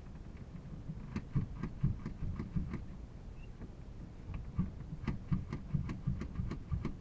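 Light mechanical clicks and knocks from the cockpit controls being worked by hand, about four or five a second in two runs with a short pause around three seconds in.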